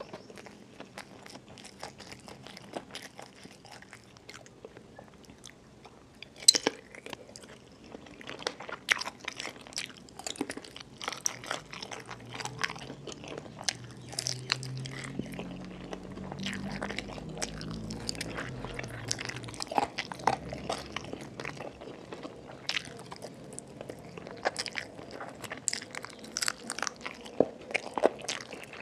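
Close-miked eating: wet chewing and crunching of chicken feet in chili dip, with many small mouth clicks and one sharp loud crunch about six seconds in.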